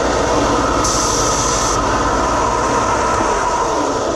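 Bench belt sander running with a steady whir. About a second in, a small gold-coloured hard-drive part is pressed to the belt for about a second, adding a higher grinding hiss as the surface is ground through to see what metal lies under the colour.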